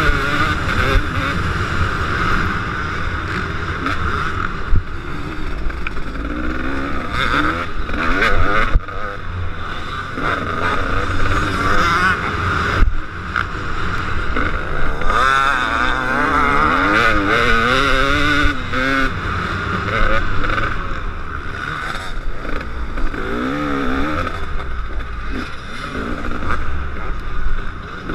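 Two-stroke KTM 250 SX motocross engine racing, its pitch rising and falling again and again as it is revved hard, shifted and backed off.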